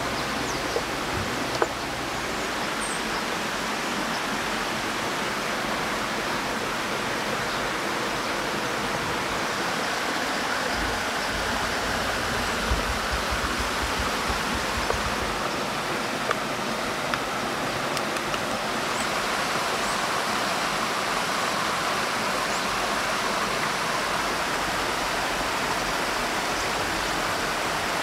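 Stream running steadily, an even rush of water, with a few soft clicks now and then.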